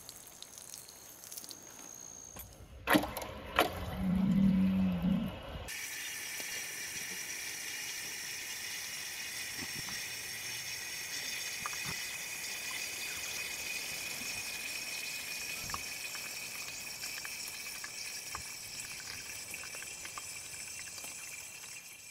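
Water running steadily into a plastic automatic horse-waterer trough, a steady hiss from about six seconds on. Before it, a couple of sharp knocks and a short low animal call.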